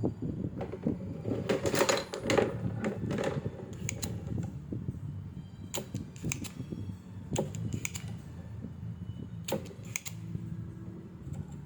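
Irregular sharp clicks and taps of small hand tools working on a circuit board, over a steady low hum.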